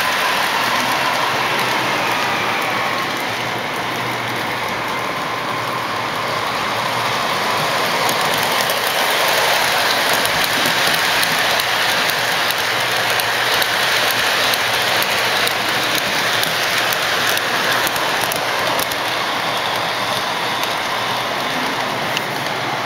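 Lionel and Marx O-gauge model trains running on three-rail track, a steady rushing rattle of small metal wheels on the rails with faint clicking.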